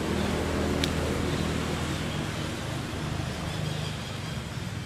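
Steady low rumble with a light hiss of outdoor background noise, and a single sharp click about a second in.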